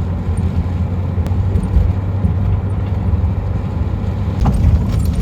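A van driving slowly over a rough, bumpy paved road, heard from inside the cab: a steady low rumble of engine and tyres, with a few sharp rattles near the end.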